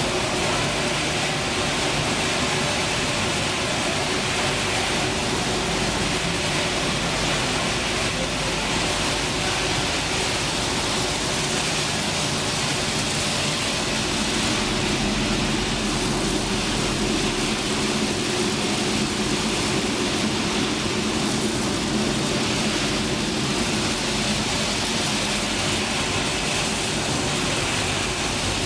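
Dog food production line machinery running: motors and rotating drums make a steady, continuous mechanical noise with a low hum under it.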